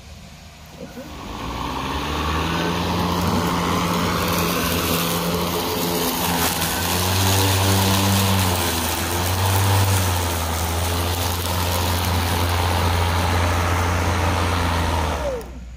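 Hart 40V brushless 20-inch cordless push mower running and cutting grass: a steady electric motor and blade hum over the rush of the cut. It builds up over the first couple of seconds and cuts off suddenly near the end.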